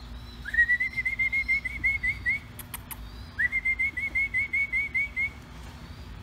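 A songbird singing two whistled phrases, each a rising slur followed by a quick run of about ten short, upturned notes. Two sharp clicks fall between the phrases.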